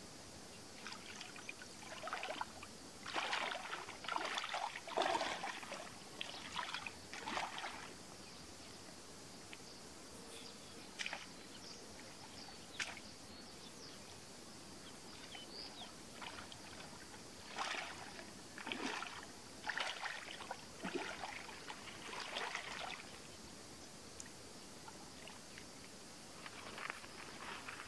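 Hands splashing and sloshing in shallow, muddy water, in irregular bursts with quieter gaps between.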